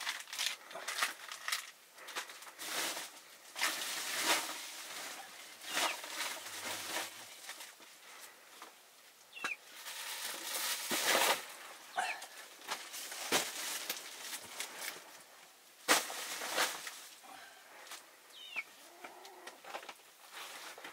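Irregular handling noises: scattered clicks, knocks and scraping rustles, with a couple of short rising bird chirps.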